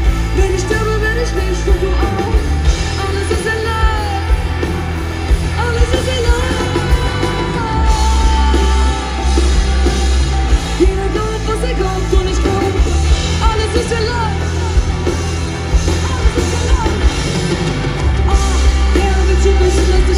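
A live pop-rock band plays on a concert stage, with drums, electric bass and electric guitars under a singing voice, and a heavy pulsing bass. It is heard from among the audience.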